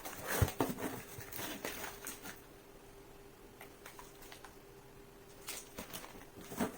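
Filament packaging being handled and opened: scattered rustles and clicks, busiest in the first two seconds and again near the end, over a faint steady hum.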